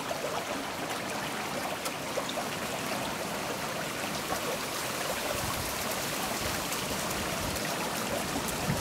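Water pouring over a small waterfall: a steady rushing hiss with faint splashes scattered through it.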